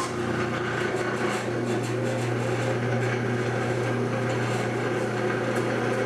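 Electric buffing machine running at a steady speed, its motor and spinning wheel giving an even hum with a steady low tone.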